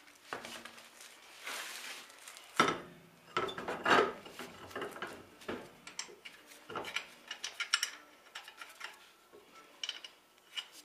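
Lug nuts being threaded by hand onto the studs of a steel wheel on a car's rear hub: irregular metallic clinks and rattles, with two louder knocks a few seconds in.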